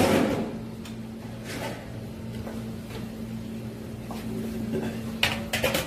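A chef's knife slicing through a raw salmon fillet on a cutting board, with a loud scraping stroke right at the start and a few sharp knocks against the board near the end. A steady low hum runs underneath.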